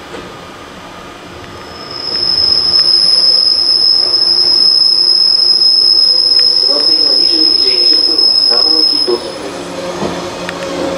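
Shinano Railway 115 series electric train pulling slowly into the platform, its wheels giving a loud, steady, high-pitched squeal that starts about two seconds in and cuts off about nine seconds in, over lower rumbling and humming from the train.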